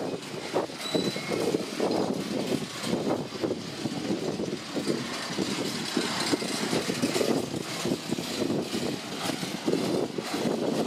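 Empty freight flat wagons rolling past on the rails, their wheels rumbling steadily and clattering in an irregular run of knocks.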